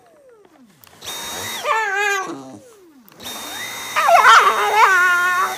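A handheld cordless vacuum's motor runs in two short bursts, about a second in and again from about three seconds in, winding down in a falling whine after the first, while a Shiba Inu gives wavering high whines and growls at it, snapping at the nozzle.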